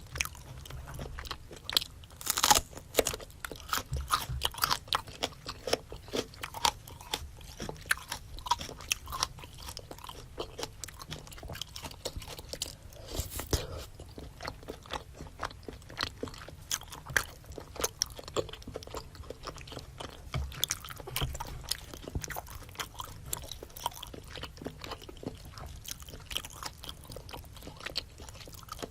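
Close-miked mouth sounds of eating a spicy seafood boil: wet chewing and biting with many sharp, irregular crunchy clicks, a louder cluster about two seconds in.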